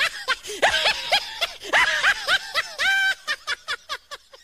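Comic laughter sound effect: a person's high cackling laugh in rapid bursts, with one drawn-out note about three seconds in, then quicker, fainter snickers near the end.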